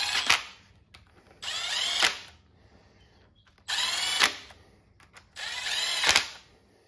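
Milwaukee Fuel cordless impact gun on its lowest setting, running the rear cover bolts of an LM7 5.3L V8 down snug in short bursts. The end of one run, then three more of under a second each, each rising in pitch as the motor spins up and ending in a sharp hit as the bolt seats.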